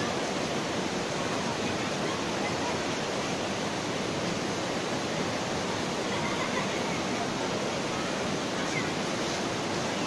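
Steady rush of a shallow river running over rocks and boulders.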